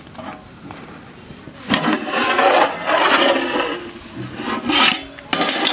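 Metal plate lid being scraped and lifted off an aluminium cooking pot: a rough metal-on-metal rubbing for about two seconds, then two sharp clattering knocks near the end.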